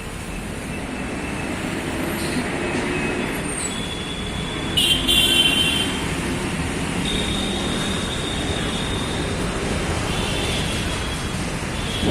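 Road traffic noise: a steady wash of passing vehicles, with horns honking. The loudest honk comes about five seconds in, and more horn tones follow later.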